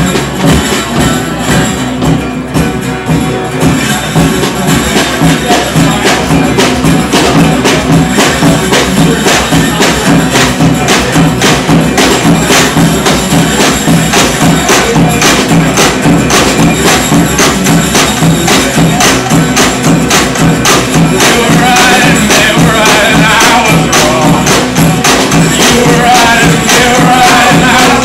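Live band playing: strummed acoustic guitar over percussion keeping a steady, even beat, the music growing fuller a few seconds in.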